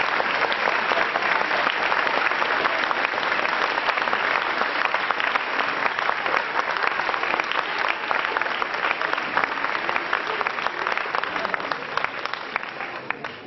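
Audience applauding, a dense clatter of many hands clapping that thins out near the end.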